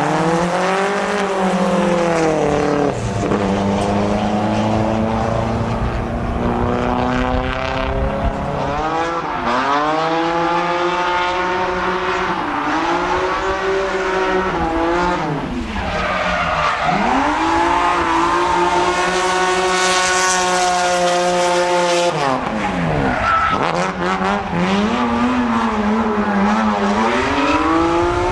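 Drift car's engine revving hard, its pitch climbing and dropping again many times as the throttle is worked through the slides, with tyres skidding on the track.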